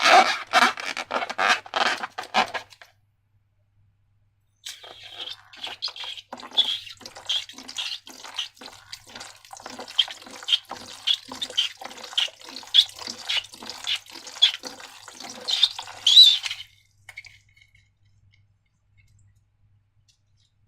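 Slime being worked by hand, making wet squelching and crackling sounds: a quick run of squelches, a short pause, then a long run of squelches at about two a second that stops near the end.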